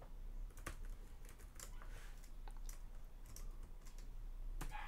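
Faint computer keyboard typing: about a dozen separate, irregularly spaced keystrokes as a short word is typed.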